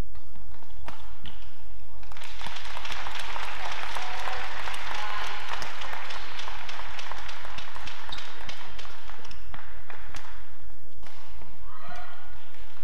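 Badminton rally: sharp racket strikes on the shuttlecock and shoes squeaking on the court mat. Crowd noise swells about two seconds in and falls away near the end.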